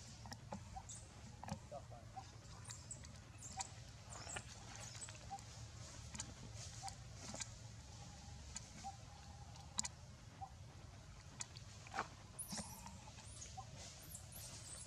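Faint scattered short chirps and squeaks with a few sharp clicks over a low steady rumble. A cluster of high squeaky calls comes near the end.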